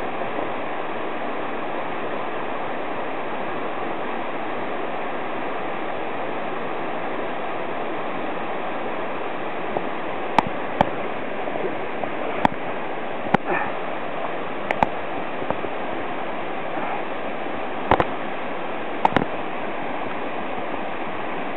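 Swollen mountain stream rushing steadily over rocks. From about ten seconds in, a handful of sharp clicks and knocks sound over it.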